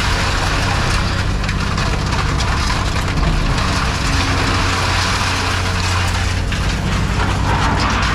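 Scrap metal baler running, its engine droning steadily while metal crunches and cracks under the press.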